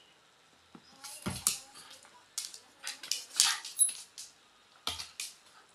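Young Shiba Inu playing with a small soft ball: a run of short scuffling noises as it mouths and carries the ball, with a soft thump a little over a second in and another near the end.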